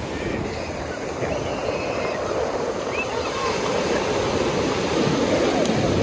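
Sea waves breaking and washing up a pebble beach: a steady rushing surf that swells a little louder near the end.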